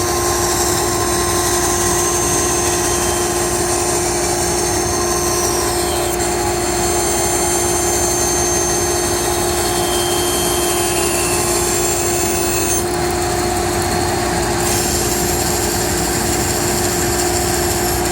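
Band saw running steadily with a constant hum, its blade cutting through wood.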